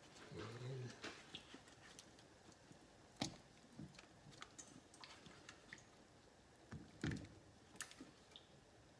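Faint, scattered plops and clicks as chunks of raw sweet potato are dropped by hand into simmering coconut milk, the sharpest about three seconds in and again around seven seconds in.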